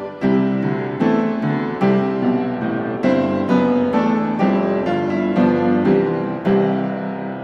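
Background piano music, single notes and chords struck one after another at an even, unhurried pace.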